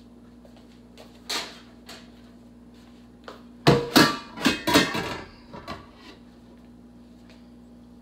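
Stainless cooking pot and its metal lid clanking and clattering several times with a metallic ring as they are handled with cloth pot holders, after a single knock about a second in. A steady low hum runs underneath.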